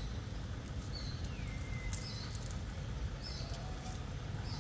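Outdoor forest ambience: a steady low rumble with four short high chirps spread through it and one falling whistled call about a second and a half in.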